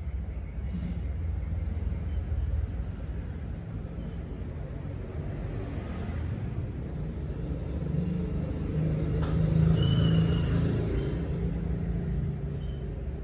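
Low, steady background rumble that swells to its loudest around ten seconds in.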